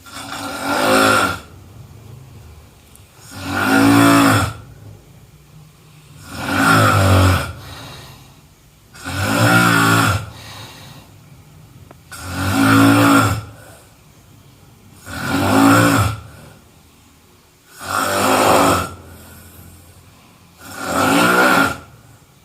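A sleeping person snoring: eight low-pitched snores, each lasting about a second and a half, coming at an even pace of about one every three seconds, with quieter breathing sound in between.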